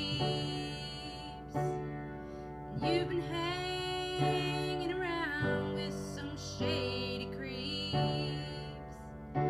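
Slow music: held chords with a melody above them, changing to a new note or chord about every second and a half.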